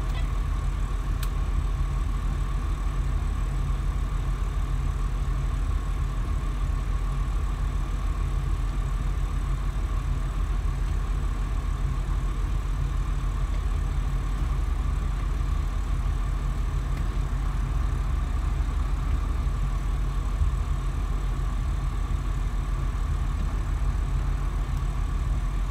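Twin diesel engines of a motor yacht idling steadily with a continuous low rumble, as the boat eases out of its slip. A single sharp click sounds about a second in.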